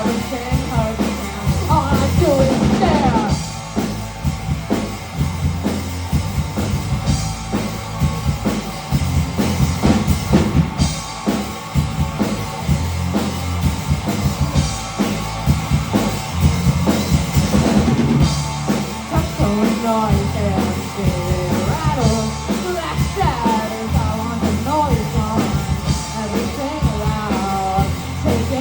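Rock band playing live: a drum kit keeping a driving beat under bass and electric guitar.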